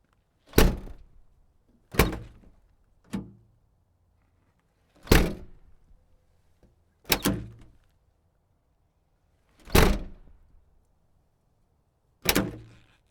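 SUV door being opened and shut over and over: seven sharp thunks one to three seconds apart, each dying away quickly, the third one fainter and the fifth a quick double knock.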